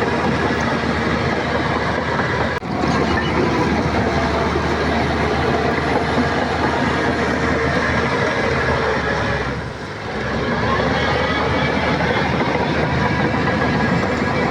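Shantui crawler bulldozer working: its diesel engine running steadily under load, with the clatter of its steel tracks. The sound eases briefly about two-thirds of the way through.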